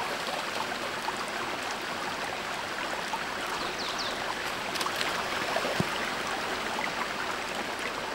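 Fast river water rushing steadily through rapids, with a few brief sharp clicks and a couple of short high chirps about four seconds in.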